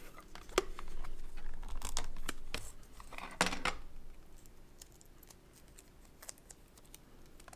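Clear gauge-handling tape (PCT-2M) being pulled off its dispenser roll and torn off, with clicks and short rasps as the strip is handled. Quieter, with only faint ticks, for the last few seconds.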